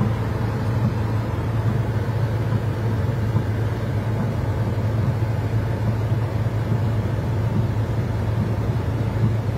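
Steady noise inside a car driving in heavy rain: a strong low engine and road hum with an even hiss of rain and water over it.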